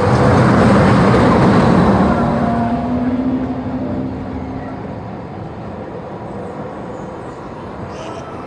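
Small family roller coaster train rolling along its track: a rumble that swells about a second in and then fades as the cars pass.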